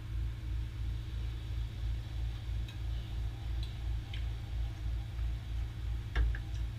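A red fox chewing and licking steak from a person's hand, heard as faint scattered small clicks, with a sharper click near the end. Under it runs a low pulsing hum at about three beats a second.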